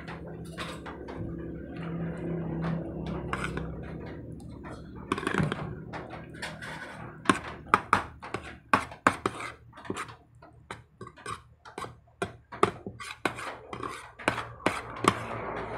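Metal spoon scraping and clinking against a plastic plate while scooping rice, in irregular sharp clicks that come thick and fast through the second half.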